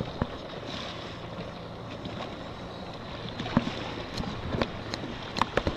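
Wind buffeting the microphone over water lapping around a small boat, with a run of sharp water slaps and splashes in the last two seconds or so.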